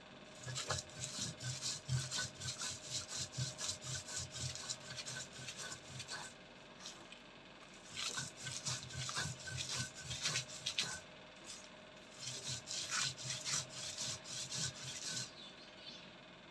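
Stone roller rubbing back and forth over a flat grinding stone (shil-nora), grinding fried dried fish, chillies and garlic into a paste. The strokes come rapid and rhythmic, in three spells with short pauses between them.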